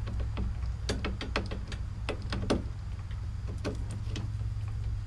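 Clusters of sharp clicks and light knocks from wiring, a connector and its cover being handled by hand on top of a small engine, coming in three groups about a second apart, over a steady low hum.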